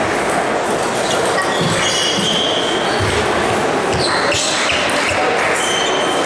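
Ambience of a busy table tennis hall: a steady din of background voices, with scattered clicks of ping-pong balls bouncing on tables and bats.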